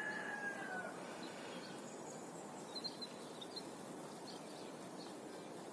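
Steady outdoor background noise with faint, scattered bird chirps. A single whistled note, falling slightly in pitch, lasts about the first second.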